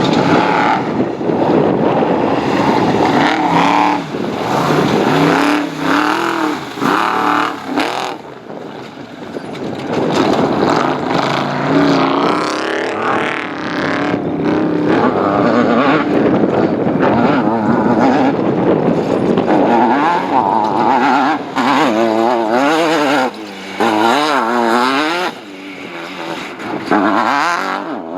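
Off-road race car's engine running hard, its revs rising and falling again and again as it is driven, with a brief drop in loudness about eight seconds in.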